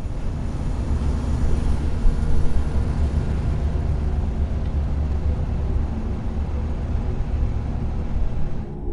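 Loud, steady rumbling roar with a hiss over it, heaviest in the deep bass, cutting off abruptly near the end.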